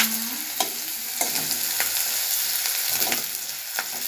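Chopped onions sizzling in hot ghee in a metal kadai, stirred with a steel spatula that scrapes and taps against the pan several times.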